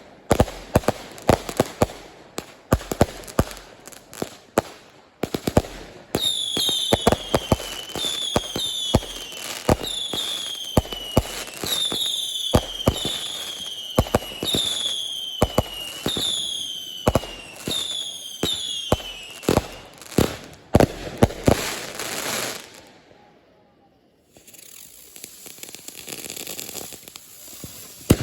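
Fireworks going off in a rapid string of sharp bangs. From about six seconds in, a run of falling whistles, about one a second, rides over the bangs for some fourteen seconds, followed by crackling, a brief lull, and more crackle and pops near the end.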